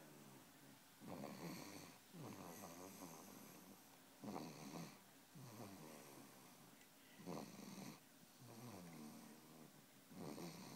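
A sleeping baby snoring: a snore on each breath in, about once every three seconds, each followed by a longer breath out that falls in pitch. Four breaths in all.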